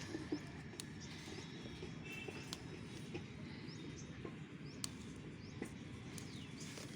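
Small birds chirping now and then, short high notes and a few quick sliding calls, over a steady low background noise.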